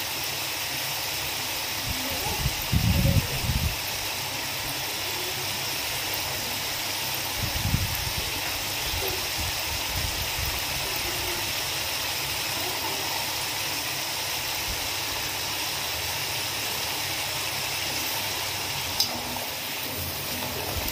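Potato sticks deep-frying in hot oil in an iron kadai: a steady, even sizzle. Short low bumps come around 3 and 8 seconds in, and a couple of sharp clicks near the end as a wire skimmer goes into the pan.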